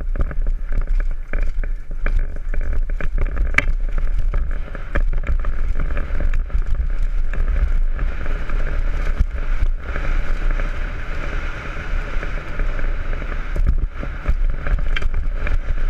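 Downhill mountain bike running fast down a rough trail: wind buffeting the microphone, tyre and trail noise, and frequent clicks and rattles from the bike over bumps.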